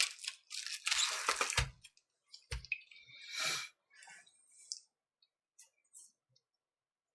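Hands handling and tapping a tablet: a few light knocks among scattered rustles.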